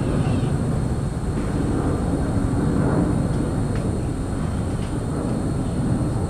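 Steady low rumble of distant engine noise, with a faint steady high whine above it; no bird calls stand out.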